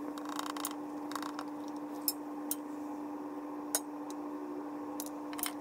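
Motor oil poured from a quart bottle through a funnel into a Harley-Davidson Street Bob's oil tank: faint gurgling and several sharp clicks, over a steady hum.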